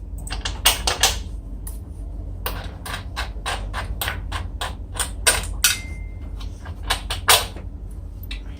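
Irregular sharp clicks and knocks of hand tools and metal parts being handled, about a dozen spread unevenly, over a steady low hum.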